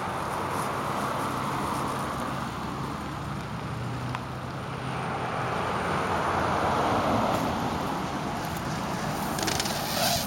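Steady rushing road traffic noise that swells and eases, with a low engine hum for a few seconds early on. A few sharp clicks and rattles come near the end.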